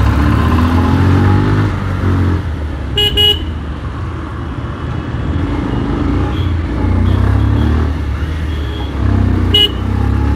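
Motorcycle engine running in slow city traffic, rising in pitch over the first couple of seconds as the bike speeds up, over a steady low rumble. A vehicle horn gives two short toots about three seconds in and one more near the end.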